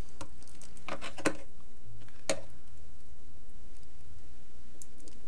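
A few sharp clicks and crinkles of a trading-card starter deck's stiff plastic wrapping being pried at with the fingers, mostly in the first two and a half seconds, over a steady low hum.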